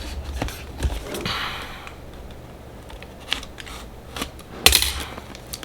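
Cardboard keyboard box being opened by hand: scattered clicks and taps, a short scraping, tearing rustle a little over a second in, and a loud sharp snap of cardboard near the end.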